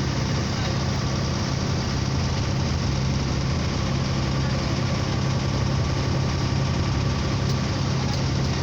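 A boat's engine running steadily, with a constant low hum and a wash of noise over it.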